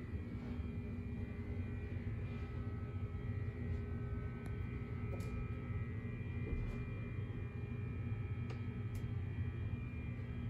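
A steady low hum with a few faint ticks scattered through it.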